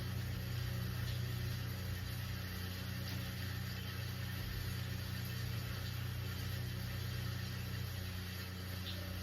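Steady rain hiss with a constant low hum underneath, unchanging throughout.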